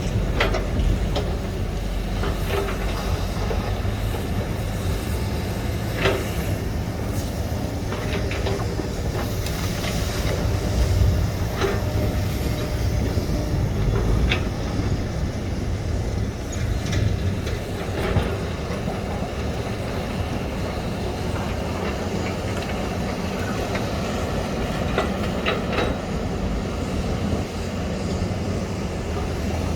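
SANY excavator's diesel engine running steadily under load, with scattered metallic clanks and knocks from the working machine.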